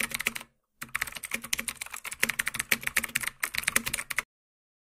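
Computer-keyboard typing sound effect: a rapid run of key clicks that pauses briefly around half a second in and stops about four seconds in.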